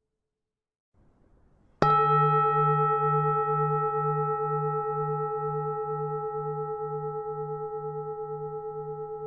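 A bronze Vietnamese pagoda bell struck once, about two seconds in. It rings on with a long, slowly fading tone over a low hum that pulses about twice a second.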